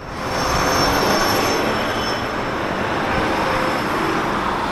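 Train running through a station platform: a steady, loud rumbling noise, with thin high-pitched squealing over it during the first couple of seconds.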